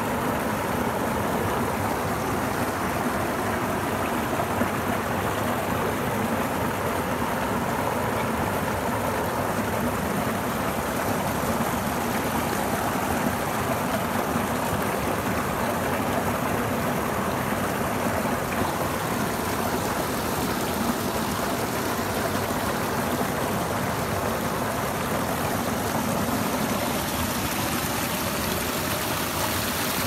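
Small waterfall pouring over rocks into a stream: a steady rush of falling and flowing water.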